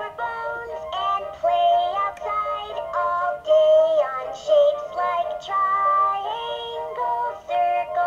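A LeapFrog My First Scout Book playing a children's song through its small electronic speaker: a synthetic-sounding sung voice carries a melody of short held notes.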